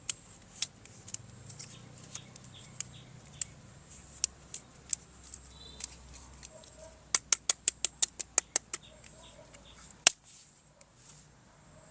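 Sharp plastic clicks from handling toy parts: scattered single clicks, then a quick run of about a dozen in a row, then one loud click near the end.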